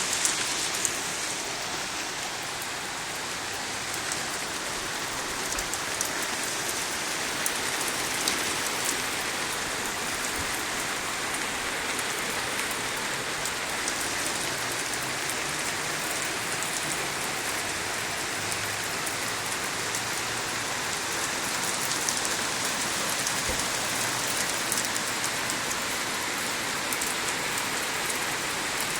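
Heavy rain in a squall, pouring and pattering steadily on surfaces with many sharp drop impacts in the hiss.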